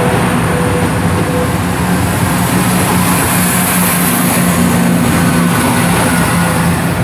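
Two coupled West Midlands Railway Class 170 Turbostar diesel multiple units pulling out and passing close, their underfloor diesel engines running under power with a steady low drone. A high hiss swells around the middle as the cars go by.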